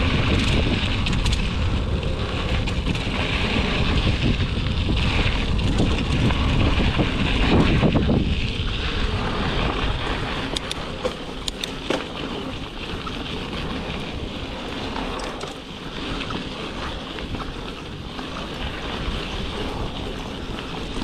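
Wind buffeting an action camera's microphone as a mountain bike rolls over dirt and gravel singletrack. The low wind rumble is heavy for the first eight seconds or so, then eases, leaving a lighter rolling noise with a few sharp clicks and rattles from the bike.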